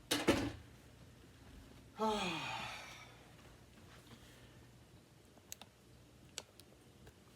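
A brief knock at the start, then a man's sigh falling in pitch for about a second, followed by two or three faint sharp clicks.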